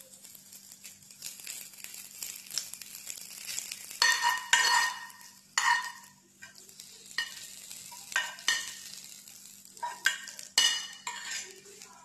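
Hot tempering oil with cumin seeds and whole dried red chillies sizzling as it is poured from a small pan onto yogurt raita, with a metal spoon scraping the pan several times.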